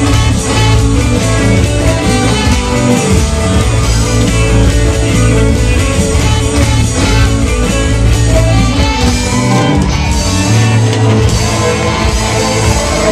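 Rock band playing live, with guitar to the fore over a heavy bass line, in an instrumental stretch with no singing.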